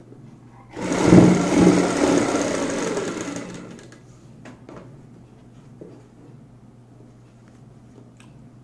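Sewing machine stitching through the fabric and elastic of a gathered waistband. It starts abruptly about a second in, runs for about three seconds and winds down; after that only faint clicks of the fabric being handled remain.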